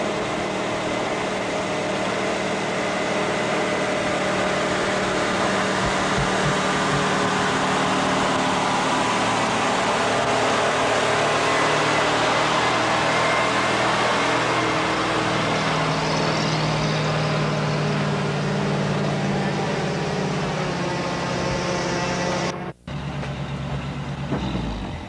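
International school bus engine running close by, a steady hum with an even pitch. The sound breaks off for an instant about two seconds before the end and then goes on more quietly.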